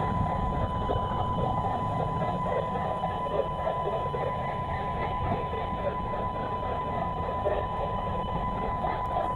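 Unidentified interference (QRM) on the VHF band heard through a Malachite DSP software-defined radio receiver: a steady high tone over a rough, buzzing noise.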